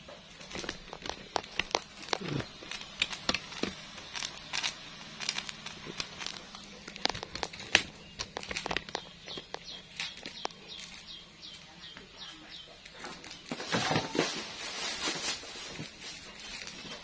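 Kitchen handling noises: scattered clicks and knocks of pots and utensils, and a run of about eight quick, high, falling chirps in the middle. Near the end a plastic bag rustles.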